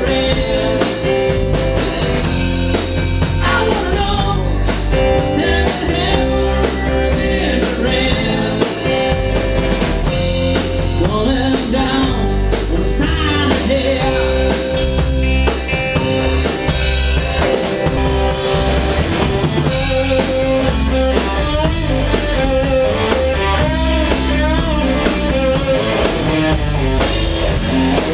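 A band playing a passage without lyrics: drum kit, a low bass line and guitar.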